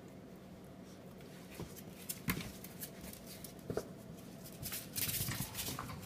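A cat and a dog play-fighting: a few soft thumps, then a stretch of rustling scuffle near the end.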